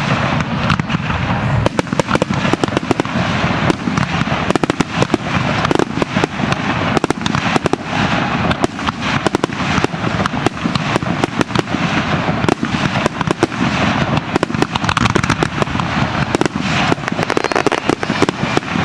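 Aerial fireworks bursting in a dense, continuous barrage: many shells going off in quick, overlapping succession.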